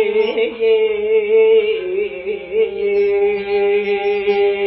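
A man singing a Turkish folk song, holding one long note whose pitch wavers and slides down a little about two seconds in.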